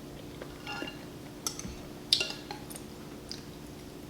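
An eating utensil clinking lightly against a soup bowl, about five small ringing clinks spread across the moment, the loudest a little past two seconds in, over a faint steady hum.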